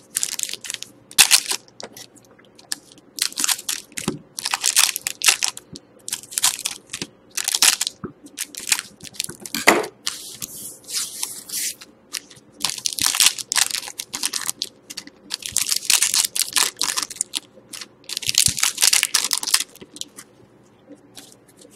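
Panini Certified hockey card packs being torn open by hand, their wrappers crinkling, with the cards handled between the tears. It comes as a string of short tearing and crinkling noises that stops near the end.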